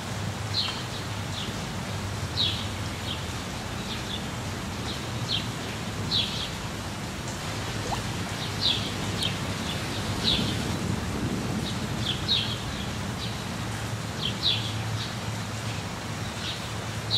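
Steady rain falling, an even hiss with a low rumble beneath it. A bird chirps short high calls, often two or three close together, every second or so.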